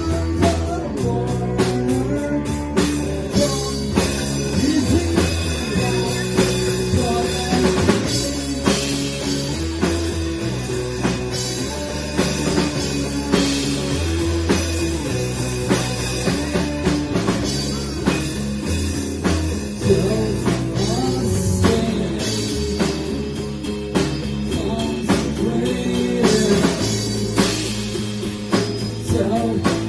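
Rock band playing: drum kit, guitar and a low bass line stepping from note to note.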